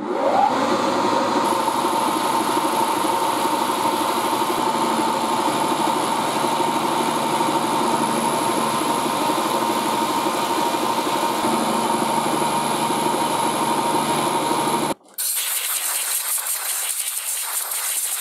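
Milling machine cutting a steel disc with an end mill: a steady spindle whine over continuous cutting noise. About 15 seconds in, a brief break leads to a brighter, noisier cut.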